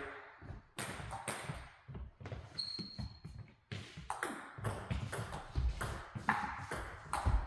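Table tennis doubles rally: the ball clicks sharply off bats and table in quick alternation, roughly twice a second, with footsteps shuffling on the floor. A brief high squeak comes about three seconds in.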